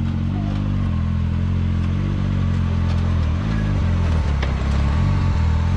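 Can-Am Maverick X3 side-by-side's turbocharged three-cylinder engine running steadily, its pitch dipping and rising about halfway through.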